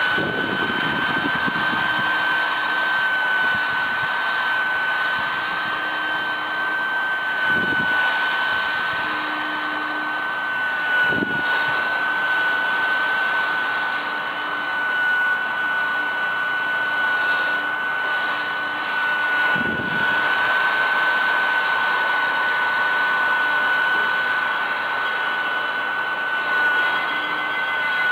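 Mini USB keyboard vacuum cleaner running with a steady, high-pitched motor whine and airflow hiss, with a few brief knocks as it is moved about.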